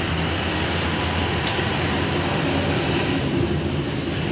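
A steady low mechanical rumble with a constant hum, like a running engine or machine, and a faint short click about four seconds in.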